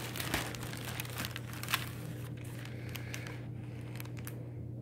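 Clear plastic wrapping crinkling and crackling as a rolled diamond painting canvas is handled, busiest in the first two seconds with one sharp crackle, then quieter over a steady low hum.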